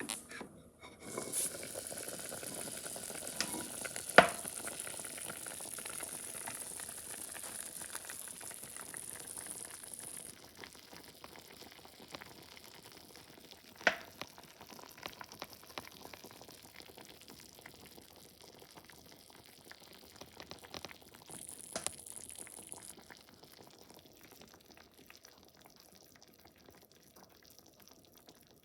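Food sizzling and bubbling in a clay pot (donabe) on a wood stove, loudest for the first ten seconds or so and quieter after. A few sharp clicks or knocks, the loudest about four seconds in.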